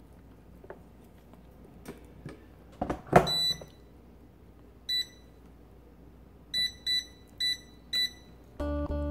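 Digital air fryer's touch panel beeping as its buttons are pressed to set it to 200°C for 20 minutes: six short high beeps spread over about five seconds, two of them close together. A loud clunk comes just before the first beep, and background music starts near the end.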